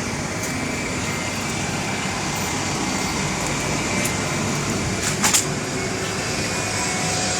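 Steady vehicle and road-traffic rumble, with two sharp clicks close together about five seconds in.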